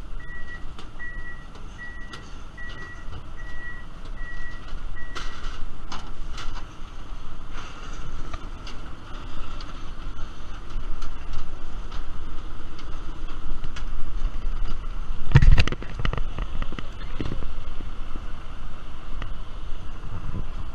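A vehicle's reversing alarm beeping about one and a half times a second, stopping about five seconds in. After that, footsteps knock on metal airstairs over a steady low rumble, with one loud thump about fifteen seconds in.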